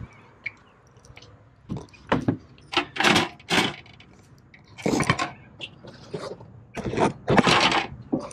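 Irregular clatter and scraping of hard car parts being shifted and handled while searching for the removed DSP amplifier unit: a string of separate knocks and rattles, loudest near the end.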